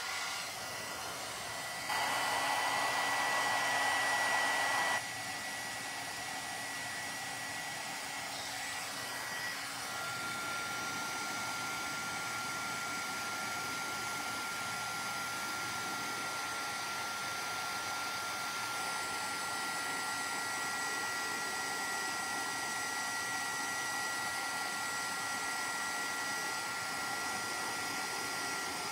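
Embossing heat gun blowing steadily with a thin fan whine, melting embossing powder on a card panel. It is louder for a few seconds near the start, and the whine shifts lower about ten seconds in.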